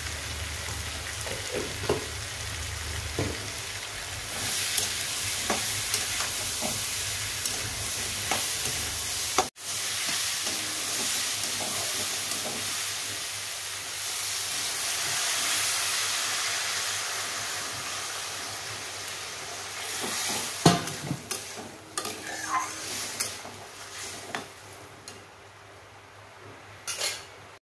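Vegetable pieces and fish head sizzling as they fry in an aluminium wok, stirred and scraped with a metal spatula, with a steady hiss and scattered clicks. Near the end come several sharp knocks.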